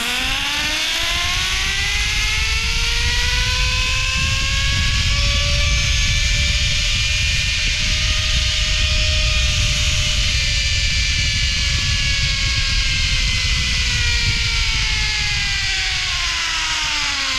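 Zip line trolley's pulleys running along the steel cable: a loud whine that rises in pitch through the first half of the ride as the rider picks up speed, then falls as the trolley slows toward the end of the line, with wind rushing over the microphone.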